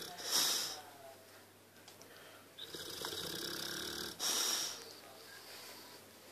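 Boxer dog snoring in its sleep: two slow breaths, each a long drawn breath followed by a short, louder puff, about four seconds apart.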